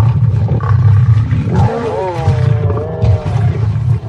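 Male lion growling continuously as he mauls a spotted hyena. A high, wavering cry, the hyena squealing under attack, rises over the growl about two seconds in.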